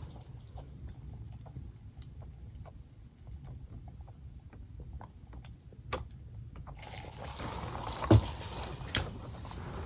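A person chewing and eating McDonald's food close to the microphone: scattered small mouth clicks over a low steady hum, with a louder knock about eight seconds in.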